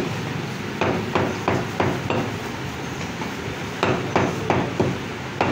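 Meat cleaver chopping mutton on a round wooden log chopping block. Sharp chops come in two quick runs of about three a second, with a short pause between them.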